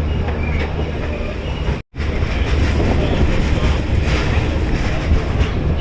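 Express passenger train running on the rails, a steady rumble of the coach and wheels, cut off briefly about two seconds in before it resumes.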